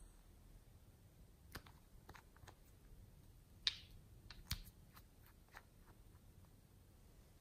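Small plastic bottles and their snap-on caps handled by fingers, giving scattered soft plastic clicks and taps. Two louder ones come about halfway through: a short scrape and then a sharp click, as a cap is worked off a bottle.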